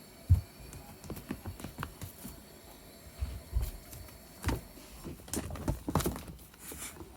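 Kitten playing with a string: irregular soft thumps, taps and scuffs of paws on the floor, with one sharp thump just after the start and a flurry of taps near the end.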